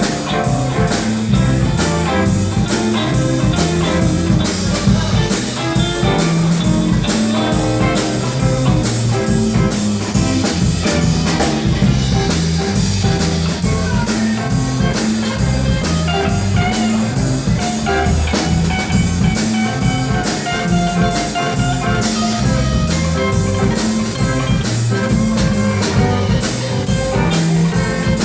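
Blues band playing an instrumental passage of guitar over a moving bass line and drum kit, with a steady, even cymbal beat.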